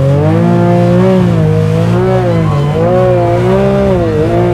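Loud mud-truck engine revving up and down about once a second, the throttle worked over and over.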